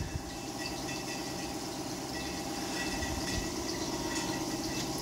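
A motor running steadily with an even low rumble.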